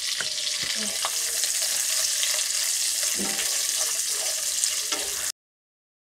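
Onion and capsicum pieces sizzling steadily in hot oil in a nonstick kadai, stirred with a wooden spatula with faint scrapes. The sound cuts off suddenly about five seconds in.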